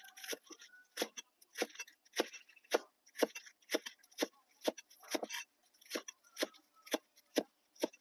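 A knife chopping on a cutting board in steady, even strokes, about two a second, as ingredients are cut for cooking.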